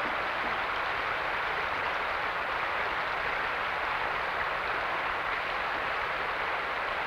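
Steady rushing noise of even loudness, with no distinct knocks, voices or tones.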